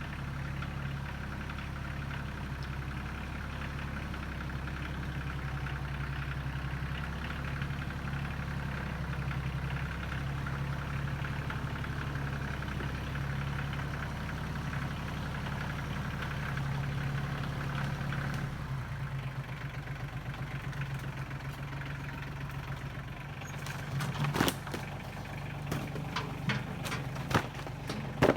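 A vehicle engine running steadily at an even, low pitch, easing off about 18 seconds in. Over the last few seconds there is a scatter of sharp knocks and clicks.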